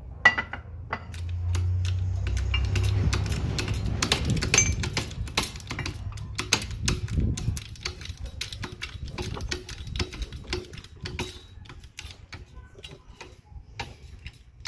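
A hydraulic shop press pushing its ram down onto steel press sleeves to force a suspension bushing into a control arm. There are many irregular sharp metallic clicks and ticks, with a low rumble in the first few seconds.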